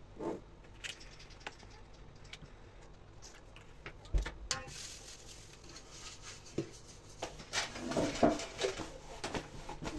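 A hand spreading cooking oil over the bottom of a black round baking pan: light knocks and rubbing against the pan, busiest near the end, with a dull thump about four seconds in.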